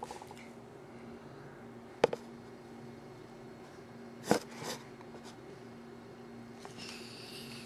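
Quiet room with a faint steady hum, broken by two sharp taps about two and four seconds in: handling noise of a cardboard shoebox held up to the camera.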